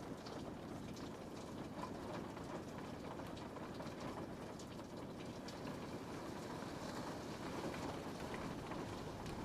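Steady rain falling on a window, an even hiss with scattered light drop ticks.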